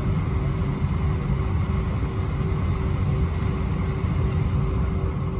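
Airbus A320-231 cabin noise: a steady low rumble of the engines and airframe with a faint constant hum, heard from inside the passenger cabin.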